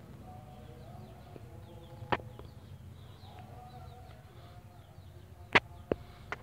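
Faint background ambience: small birds chirping over a low steady hum, broken by sharp clicks, one about two seconds in and three near the end, the loudest about five and a half seconds in.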